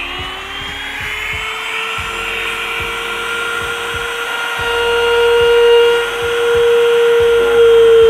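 Handheld mini grinder (rotary tool) running with a steady high whine, its pitch creeping slightly upward, as its bit cuts into PVC pipe.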